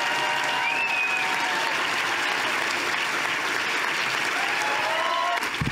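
Audience applauding steadily, with a few short calls and cheers over the clapping. The applause cuts off suddenly near the end.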